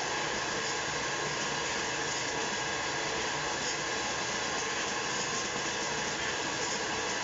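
Stainless-steel puffed-snack machine running with a steady motor and blower whir, while puffed corn pieces spill off its steel tray into a plastic bin.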